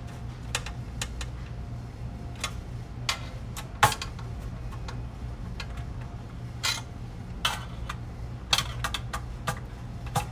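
Screwdriver tightening the four screws that hold a power supply board down on its metal mounting tabs: irregular small metallic clicks and ticks, with one sharper click a little under four seconds in.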